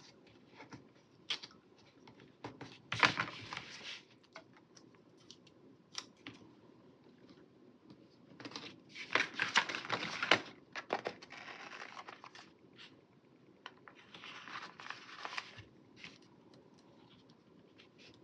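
Paper stickers and planner sheets being handled: several short bursts of rustling and peeling, with scattered light taps and clicks between them.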